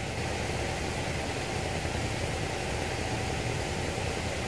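Steady rushing of flowing river water, an even hiss with a low rumble and no separate events.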